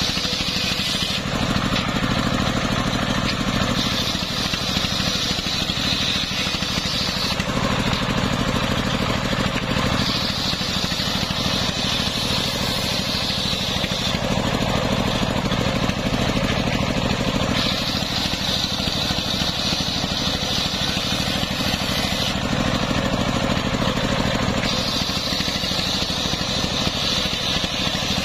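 Large circular saw blade, belt-driven by a stationary engine, ripping a plank of waru (sea hibiscus) wood. The engine runs steadily underneath, and the blade's high cutting whine comes and goes every few seconds as the plank is pushed through.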